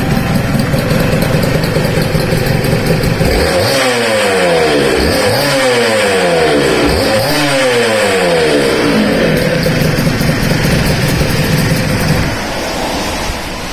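Yamaha TZR250R SP's two-stroke V-twin engine, breathing through an SP Tadao Jakal expansion chamber, running at idle and blipped three times, each rev rising and falling back quickly, before settling to idle again and growing quieter near the end.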